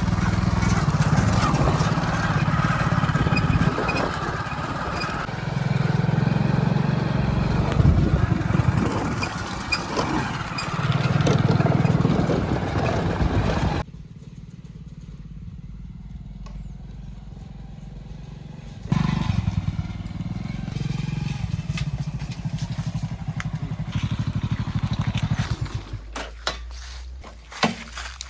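Diesel engine of a JCB 3DX backhoe loader running and revving in swells as it works. About halfway through it gives way abruptly to a quieter steady hum for several seconds, then the loud engine returns, with a few sharp knocks near the end.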